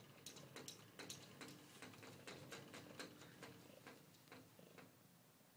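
A cat's paws and claws tapping against a mirrored closet door as it bats at its reflection: quick faint clicks, several a second, that thin out and stop near the end.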